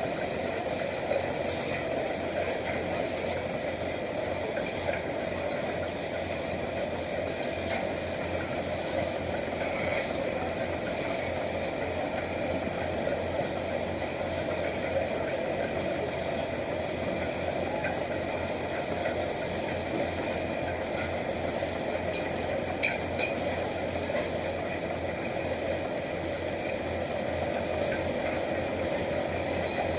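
A machine running steadily, with a few faint clicks.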